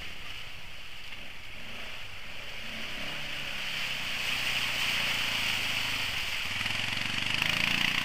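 Quad bike engine running as it ploughs through a flooded mud hole, with water splashing and sloshing around its wheels. The engine and the splashing grow louder over the second half as it comes close.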